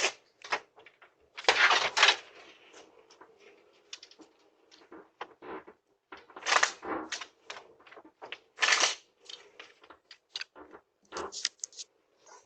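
A man banging and rattling at a front door, heard through a doorbell camera's microphone: irregular knocks, thuds and rattles, loudest about two seconds in and twice more later.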